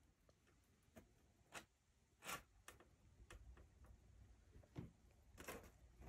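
Near silence broken by about seven faint, scattered knocks and creaks of old wooden barn floorboards underfoot, at irregular spacing; the loudest comes about two seconds in.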